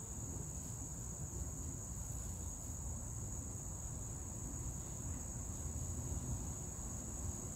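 Steady, high-pitched insect chorus, one unbroken shrill tone, over a low rumble.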